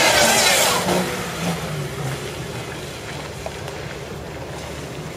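Toyota Land Cruiser SUV's engine revving hard as it drifts on a wet surface. The revs fall away about a second in, leaving the engine running lower under a steady wash of noise.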